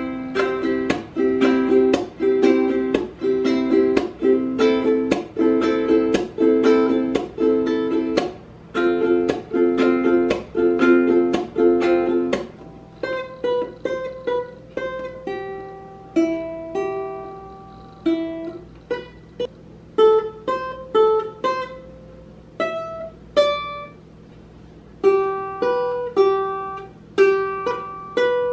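Ukulele strummed in chords, about two strums a second, for roughly the first twelve seconds. It is then played note by note, a slow single-note melody picked out with pauses between notes.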